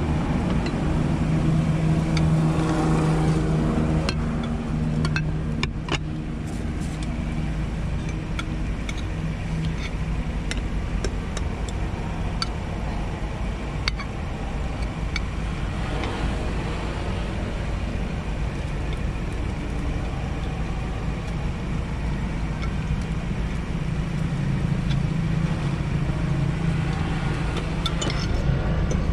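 Steady hum of a motor vehicle engine, louder in the first few seconds and again near the end, with a few clinks of cutlery on dishes.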